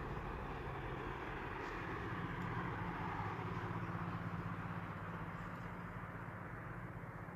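Road traffic crossing a bridge: a steady rumble of engine and tyre noise with a low hum, slowly fading over the last few seconds.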